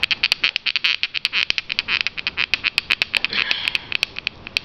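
Rapid, irregular clicking and scraping, about ten sharp clicks a second, from the coat-hanger-wire hand drill and the wooden block it has just drilled through being handled. The clicks thin out over the last second or so.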